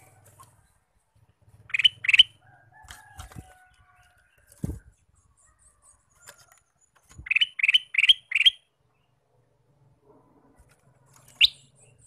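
Male ruby-throated bulbul (kutilang emas) giving short, sharp calls: a pair about two seconds in, a fast run of four around seven to eight seconds, and a single call near the end. A couple of dull thumps fall between the calls.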